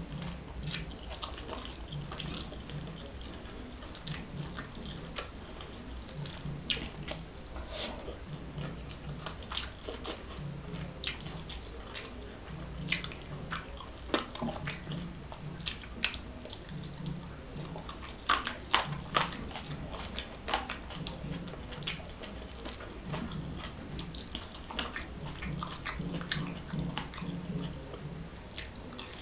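Close-miked chewing of food, steady at about one chew a second, with many sharp wet mouth clicks and smacks.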